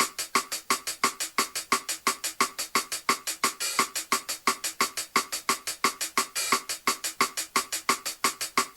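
Programmed drum track broken down to a single percussion tick repeating evenly, about six times a second, with the bass and the rest of the kit dropped out.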